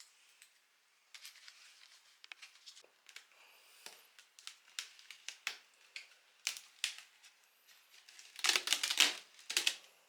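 Hands handling parts and packaging: a run of clicks, taps and crinkly rustles that grows busier and loudest about a second before the end.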